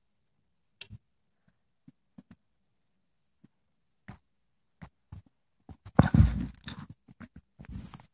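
Scattered small clicks and taps as a record player's tonearm is handled and set back on its rest, with no record playing. A loud noisy scrape of handling noise comes about six seconds in, and a shorter one near the end.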